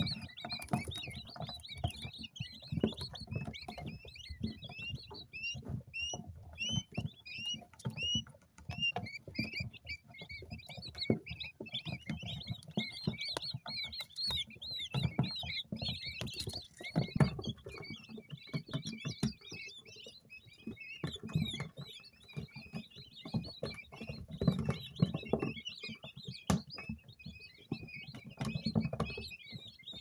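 A brood of two-day-old coturnix quail chicks peeping continuously: many short, high, overlapping cheeps with frequent soft low knocks underneath.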